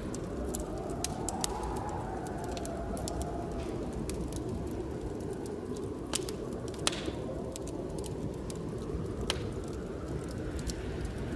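Blizzard wind blowing steadily with a low rumble, a whistling gust rising and falling over the first few seconds, mixed with a wood fire crackling in sharp pops, the loudest about a second and a half in and near seven seconds.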